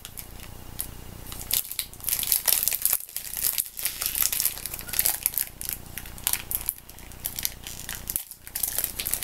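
The wrapper of a small snack-size chocolate bar crinkling in the hands as it is picked at and worked open, in many short, irregular crackles.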